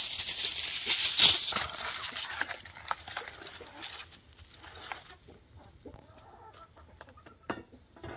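Chickens clucking, with a loud rustling, scratching hiss through the first few seconds, then quieter, with scattered clicks.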